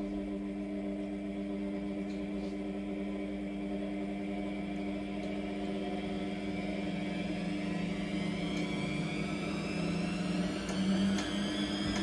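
Motor-driven neodymium magnet rotor spinning beside a water-filled copper pipe in a magnetic induction heater, running with a steady hum. A higher whine climbs slowly in pitch through the second half as it gathers speed.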